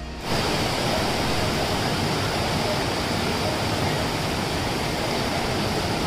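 Steady rushing water, like a waterfall or fast stream, starting abruptly a moment in.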